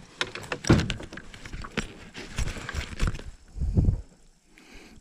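Just-landed bass thrashing as it is swung into the boat and gripped by hand: a quick, irregular run of sharp clicks and knocks, with a couple of heavier low thuds, the loudest about a second in.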